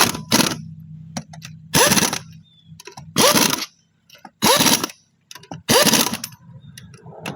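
Impact wrench fired in short bursts, about one every second and a half, the motor's pitch climbing within each burst as it hammers on a suspension fastener.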